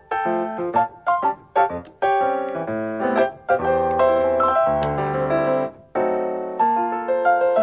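Piano music: separate struck notes at first, filling out into chords with a melody on top about two seconds in.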